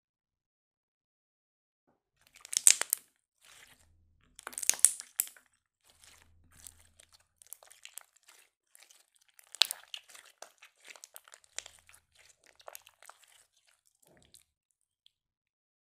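Glossy blue slime squeezed and stretched by hand on a glass plate, crackling and popping as it is worked. It starts about two seconds in with two loud bursts of crackles, then goes on as softer, scattered pops and clicks until a second or so before the end.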